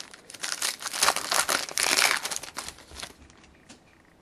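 Wrapper of a 2011-12 Panini Contenders hockey card pack being torn open, a dense run of small crackles from about half a second in until about three seconds.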